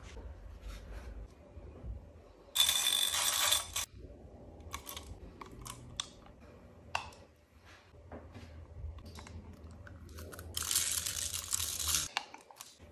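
Unboxing handling sounds: small clicks and taps of a metal bag clasp and chain against the box, with two louder stretches of rustling, about three seconds in and again near the end.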